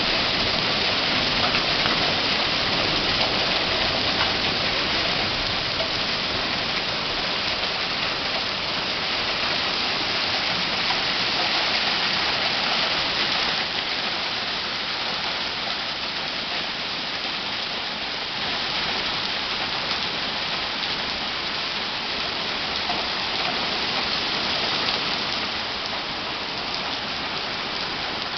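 Heavy rain pouring down onto a paved driveway and lawn: a steady, dense hiss.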